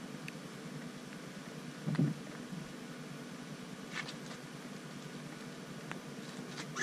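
A steady low mechanical hum, with a soft thump about two seconds in and a few faint clicks later.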